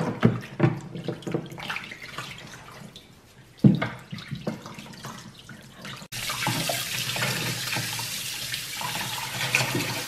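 Water splashing and sloshing in a kitchen sink as a vacuum's soft roller brush is washed and squeezed by hand, with a few loud splashes. About six seconds in this cuts to a tap running steadily onto the roller as it is rinsed.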